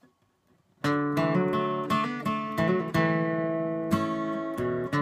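Acoustic guitar strummed in a steady rhythm of chords, starting about a second in.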